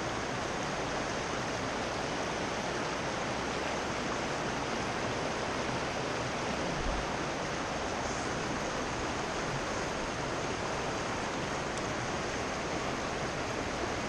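Swift river water rushing over rocks, a steady, even rush.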